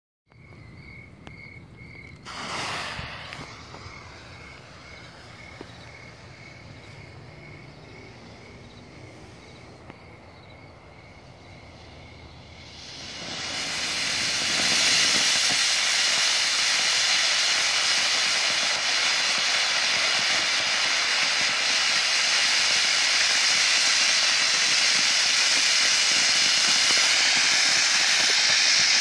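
A homemade red gerb with titanium in its mix catches about halfway through. Its hiss builds over a couple of seconds into a loud, steady hiss of spraying sparks. Before it catches there is a quieter stretch with a faint, regular chirping, about two or three chirps a second.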